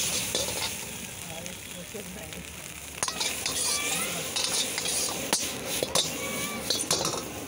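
Chopped green vegetables sizzling in a hot wok while a steel ladle stirs and tosses them. The ladle clinks and scrapes sharply against the wok several times, and the sizzling grows louder from about three seconds in.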